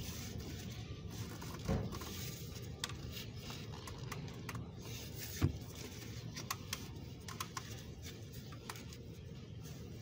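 Scattered light clicks and a couple of dull knocks as a hand screws down the plastic oil filter housing cap on its aluminium housing, over a steady low background rumble.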